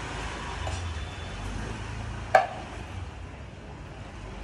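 A low steady rumble with one sharp knock a little past halfway.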